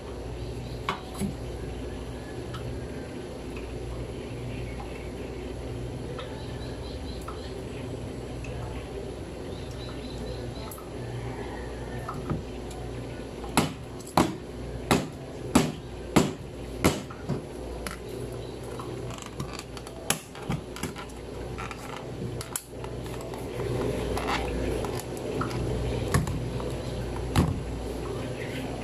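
Kitchen utensils clattering on hard surfaces: a run of about eight sharp knocks roughly half a second apart midway, then a few scattered ones, over a steady low hum.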